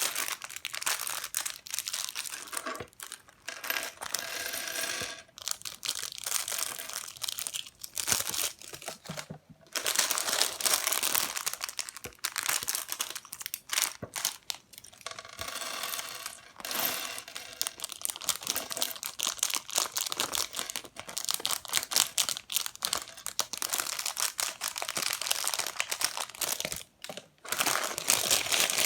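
Plastic parts bags from a LEGO Technic set crinkling and rustling as they are handled, in irregular bursts with short pauses.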